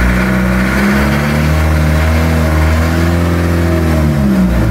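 Bangka fishing boat's 4DR30 inboard diesel engine revving up about a second in, holding at higher revs, then dropping back toward idle near the end.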